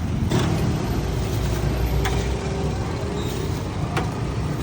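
Steady low rumble of street traffic, with a few light clicks about two seconds apart.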